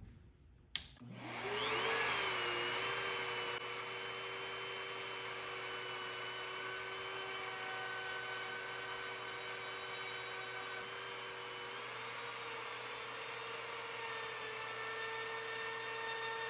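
Compact trim router in a handheld CNC switched on with a click about a second in, its motor whining up to speed, then running steadily as the V-carve bit engraves the wood. About twelve seconds in, its pitch steps up slightly.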